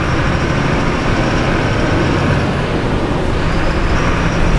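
Steady running noise of a Mercedes-Benz four-cylinder diesel city bus heard from the driver's seat, rolling downhill with its Telma electromagnetic retarder engaged to hold the speed. The sound is an even engine-and-road rumble.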